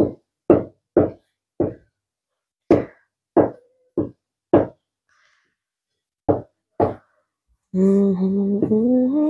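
Cleaver chopping tempe on a wooden cutting board: about ten sharp knocks at an uneven pace. About two seconds before the end, a held, slowly rising sung note comes in.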